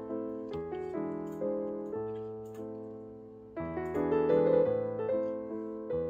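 Background piano music: a gentle melody of single notes that ring and die away, easing off just past the middle before a louder phrase begins.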